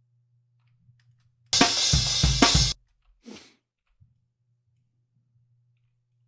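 A recorded drum kit played back from a multitrack edit, with kick, snare and bright cymbals, for a little over a second before cutting off abruptly. A faint low hum and a few faint clicks sit underneath.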